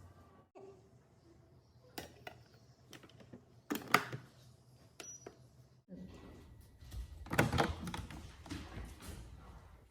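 Kitchen handling sounds: scattered clicks and knocks of utensils and containers, with a louder knock about 4 s in and a busier run of clattering near the end.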